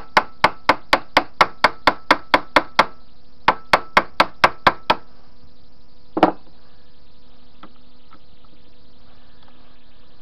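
Rapid, even metal-on-metal tapping on a steel lathe-chuck jaw, about four light strikes a second, knocking the stuck reverse jaw loose in its chuck slot. The tapping comes in two runs with a short pause between them, followed by a single heavier knock about six seconds in.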